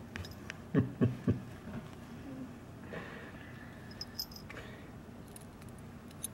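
Border terrier licking and nuzzling a kitten: three loud mouth smacks about a second in, then light rustling on the bed, with a collar jingling briefly around four seconds in and again near the end.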